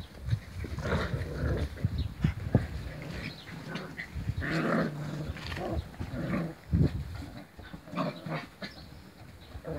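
A group of seven-week-old kelpie pups playfighting, growling in short, irregular bursts as they wrestle.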